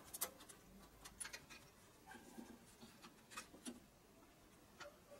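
Near silence with a few faint, light clicks and taps of hands handling parts on an engine's exposed cylinder head.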